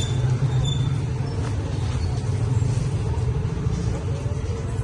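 Street traffic: a steady low engine rumble from motor vehicles on the road.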